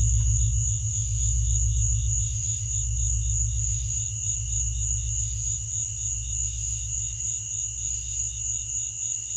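Ambient soundtrack: a loud low drone under a steady high whine and a rapid insect-like trill pulsing about four times a second, the whole slowly fading.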